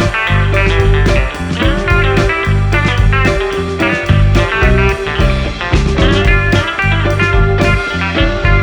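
Background music led by guitar in a bluesy rock style, over a steady bass and drum beat.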